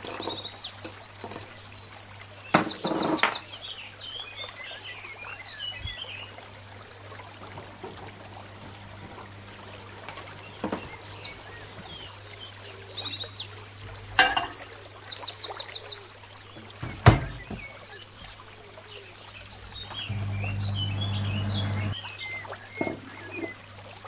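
Small birds chirping and trilling over and over in the background, with a few sharp knocks and clicks of dishes and the microwave being handled. A steady low hum runs underneath and gets louder for about two seconds near the end.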